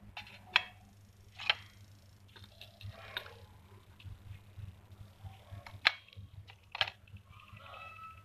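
Small clay pots clicking and tapping as they are handled and set down on a steel plate: four sharp clicks with softer scraping between, over a steady low hum.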